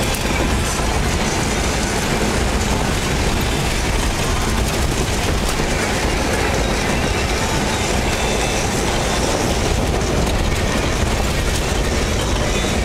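Cab noise of a 1985 Toyota 4Runner driving a washboard dirt road: a steady low rumble with a dense, fast rattle as the truck shakes over the corrugations.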